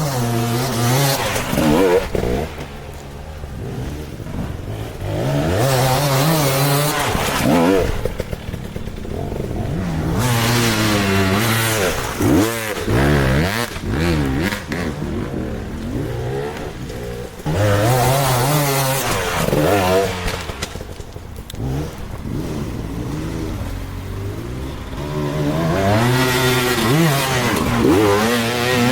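Beta 200 two-stroke single-cylinder enduro bike engine being ridden, its revs rising and falling again and again as the throttle is opened and closed, with several loud surges of acceleration.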